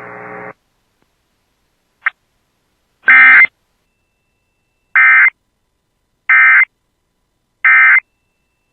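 Emergency Alert System End of Message data tones: short, harsh, buzzy digital bursts, the last three evenly spaced about a second and a third apart, marking the end of the alert. Radio hiss cuts off about half a second in, and a faint click and a first similar burst come before the three.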